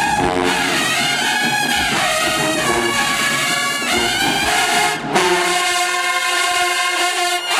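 A marching band's massed brass playing: sousaphones, mellophones, trumpets and trombones. Notes slide up and down in the first half; about five seconds in there is a brief break, and then loud held chords follow with the low end dropping away.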